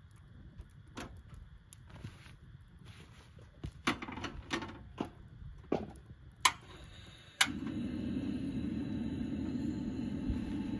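Light clicks and knocks of cooking gear being handled, then a sharp click about seven seconds in and a steady rushing burner noise begins: a camp stove being lit for cooking.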